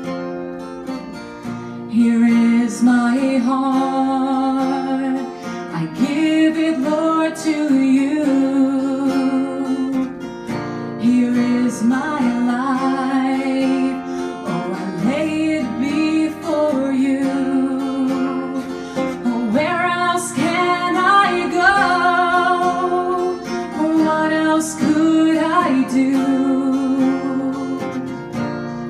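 Acoustic guitar strumming behind a woman singing a worship song; her voice comes in about two seconds in.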